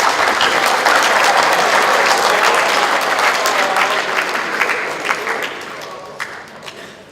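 An audience applauding, the clapping thinning out and fading over the last two seconds.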